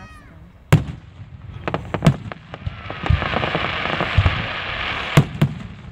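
Aerial firework shells launching and bursting, with sharp bangs about a second in, around two seconds, and twice in quick succession near the end. A loud hiss swells up in the middle and fades just before the last bangs.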